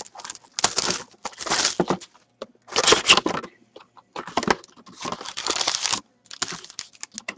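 Cellophane shrink-wrap being torn and crumpled off a sealed box of hockey trading cards, in a series of short crinkling bursts. Near the end the cardboard box is opened and a foil card pack is pulled out.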